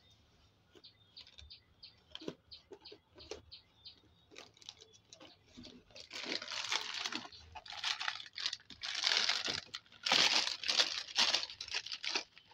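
Faint tapping and scraping of a cardboard box being opened. Then, from about six seconds in, loud crinkling of plastic-wrapped packets being pulled out of the box and dropped in a heap, in bursts that are loudest near the end.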